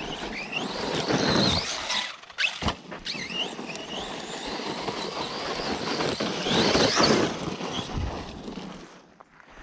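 Arrma Outcast 4S RC truck's brushless motor whining, rising and falling in pitch as the throttle is worked, over a rough scrabbling of the truck on rocky ground. There are two sharp knocks about two and a half seconds in, and the sound drops away near the end.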